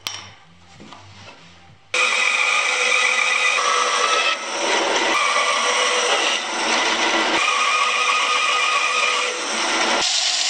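Bandsaw cutting through a block of wood: a loud, steady whir and hiss of the blade with a high whine in it, starting suddenly about two seconds in after a few quiet handling sounds, and dipping briefly now and then. Near the end it changes to the steadier whir of a disc sander.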